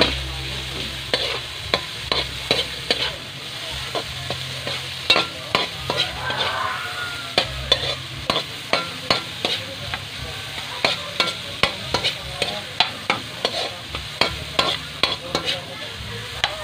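A metal spatula scraping and knocking against a metal wok about twice a second, over the steady sizzle of ingredients stir-frying in oil.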